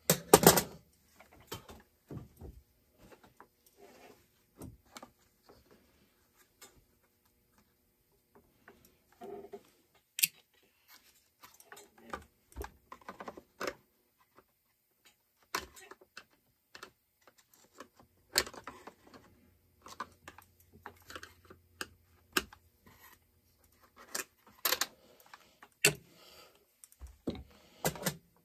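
Hand tools and parts clicking and knocking against a Farmertec MS660 chainsaw as it is taken apart: irregular clicks and knocks, the loudest right at the start.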